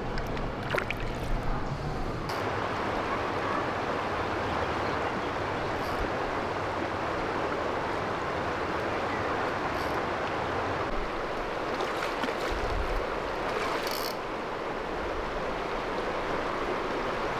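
Shallow creek water rushing steadily over a riffle, growing louder about two seconds in.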